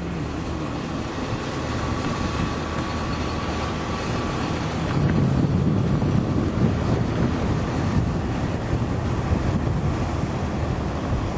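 Steady rumble of a running vehicle with wind buffeting the microphone, growing louder about five seconds in.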